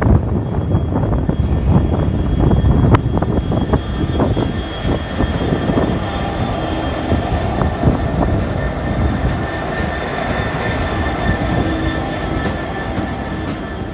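Several GBRf Class 66 diesel locomotives pass close by, their EMD two-stroke V12 engines running, with wheels clattering over the rails and a steady high whine. It is loudest in the first few seconds and fades near the end as the last locomotive goes by.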